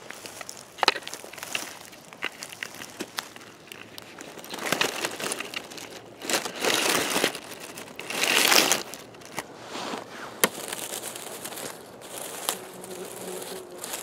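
Dry pine needles, twigs and cones crunching and rustling in uneven bursts as someone moves over the forest floor, the loudest about eight seconds in, with a few sharp twig snaps. A faint low hum comes in near the end.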